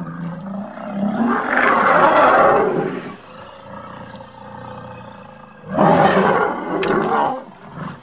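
Elephant-type roar sound effect: two loud, rough roars, the first swelling about a second in and lasting about two seconds, the second about six seconds in, with a quieter low rumble between them.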